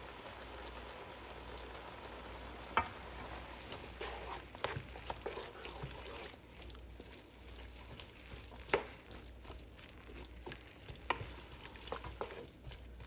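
Diced chayote and shrimp sizzling in a ceramic nonstick pan, stirred with a wooden spoon that knocks against the pan several times, loudest about 3 and 9 seconds in. The sizzle quietens after about six seconds.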